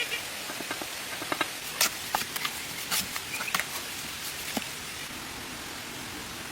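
A string of irregular light clicks and taps, some with a brief ring, over a steady hiss; the taps stop a little past halfway.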